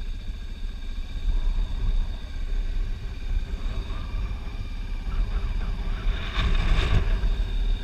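BMW 650 GS motorcycle riding along at low speed: a steady engine rumble mixed with wind buffeting on the microphone, the noise swelling briefly near the end.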